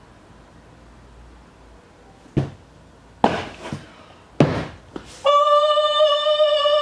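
A series of hard thuds, then a steady held note with many overtones starting about five seconds in, as in an edited-in sound effect or musical sting.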